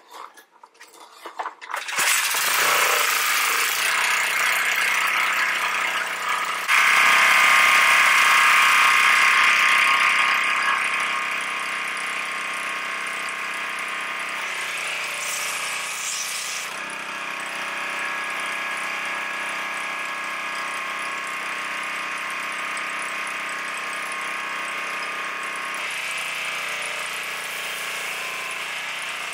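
Duromax gas-engine pressure washer (5 HP) being started: a few short pulls, then the engine catches about two seconds in and runs steadily. It grows louder and hissier about seven seconds in and settles back after about eleven seconds.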